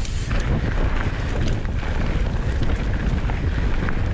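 A mountain bike ridden fast down a dirt trail: wind buffeting the camera microphone over a steady low rumble of tyres rolling on dirt, with small ticks and rattles from the bike.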